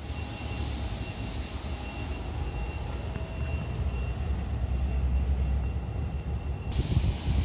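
Muffled, steady low rumble of jet airliners on the apron heard through terminal window glass, with a faint steady whine, slowly growing louder; a hiss comes in near the end.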